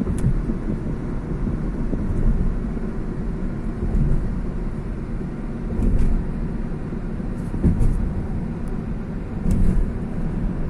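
A car driving at road speed: a steady low rumble of tyres and engine, with a few brief bumps.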